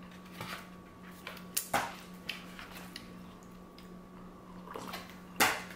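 Quiet eating and drinking sounds at a table: a few short sips, mouth noises and light clicks, the loudest near the end, over a steady low hum.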